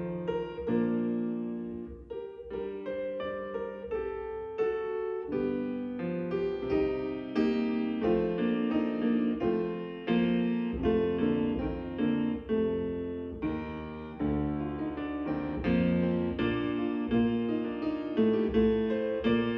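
Piano playing the service prelude: a steady flow of struck notes and chords, each fading after it is played.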